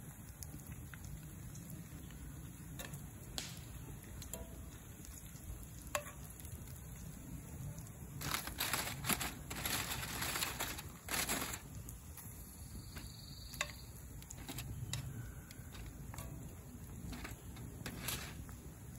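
Bacon sizzling in a cast-iron skillet over a campfire, with a few sharp clicks of metal tongs against the pan. A louder crinkling of aluminium foil runs from about eight to eleven seconds in.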